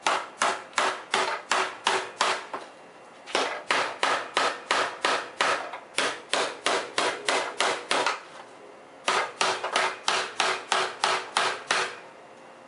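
Repeated hammer blows on a replacement VW armrest lid hinge, testing that it won't break. The sharp strikes come about two and a half a second in three runs, with two short pauses, and a faint ring follows each strike.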